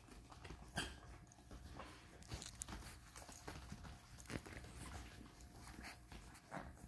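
Young Vizsla puppies moving about on puppy pads: faint, scattered taps and rustles of paws and bodies on the pads.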